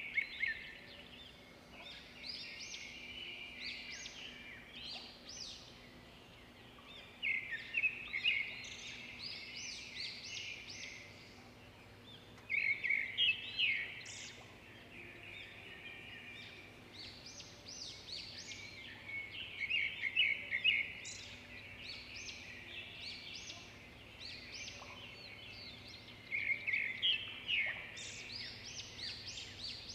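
Bird song: a bright chirping phrase repeated about every six to seven seconds, with a faint steady hum underneath.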